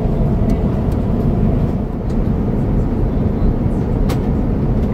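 Steady, dense low rumble of an Airbus A350-900 cabin in flight, from the engines and the airflow over the fuselage. A faint click comes about four seconds in.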